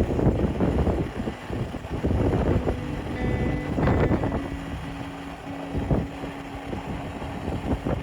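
Strong wind buffeting the microphone in uneven gusts, with a few faint steady tones underneath.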